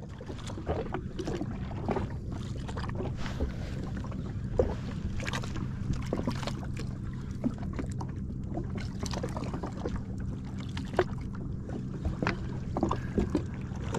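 Small waves lapping and slapping against the hull of a drifting jet ski, with scattered short splashes and knocks over a steady low hum.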